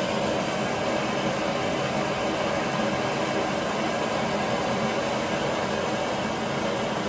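Homemade propane forge burner running with a steady rushing hiss of gas and flame as its adjustable regulator is turned down from about 12 psi, easing slightly quieter near the start.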